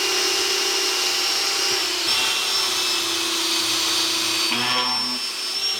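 Electric drill running steadily, boring out the plastic baffle inside a power steering reservoir's hose fitting. Its pitch drops slightly about two seconds in and rises again near the end.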